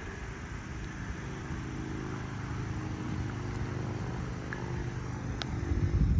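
A steady low engine drone. A louder rumble of wind on the microphone comes near the end.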